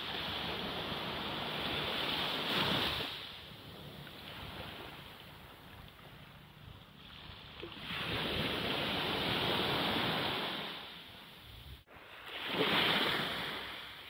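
Small waves washing up onto a sandy beach, the surf swelling and ebbing: it rises about three seconds in, again for a longer stretch past the middle, and once more near the end.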